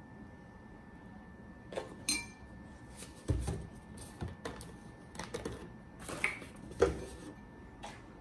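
Tableware clatter: a spoon clinking in a ceramic bowl and things being set down on a wooden table. An irregular run of light knocks and clinks starts about two seconds in, a couple of them ringing briefly.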